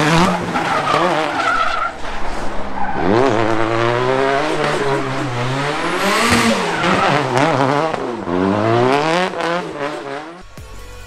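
Turbocharged Mercedes M111 four-cylinder in a drift car, revved up and down again and again with loud tyre squeal as the car slides. About ten seconds in the sound drops away suddenly.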